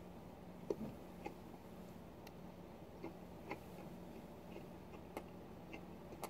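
Faint eating sounds, a metal spoon and mouth working a goulash out of a plastic tub: about ten scattered soft clicks and taps over a low steady hum.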